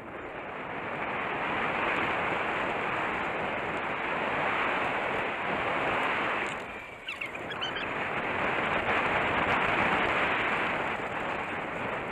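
Steady rush of wind buffeting the camera microphone while a mountain bike rolls down a dirt trail. The rush briefly drops about seven seconds in, then returns.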